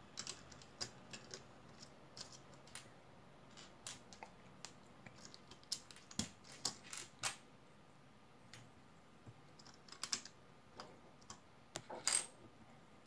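Small plastic LEGO bricks clicking and clattering as they are handled, pressed onto a partly built model car and set down on a wooden table: irregular sharp clicks, with a quick run of them about halfway and the loudest near the end.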